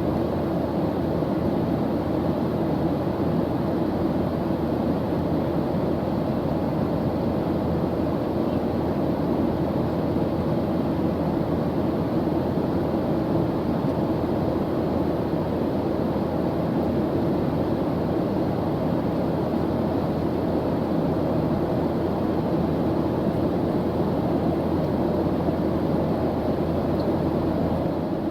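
Airplane engine noise in flight: a steady, even drone, mostly deep rumble, that holds at one level without any change.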